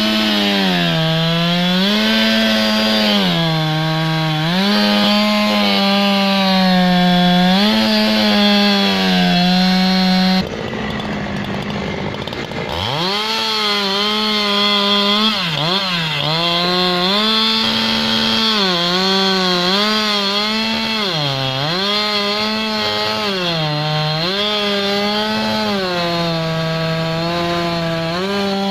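Chainsaw cutting into a big tree, its engine pitch dipping and recovering every couple of seconds as the chain bogs under load. About ten seconds in the throttle drops off and the saw falls to a low idle, then it revs back up about two seconds later and goes on cutting.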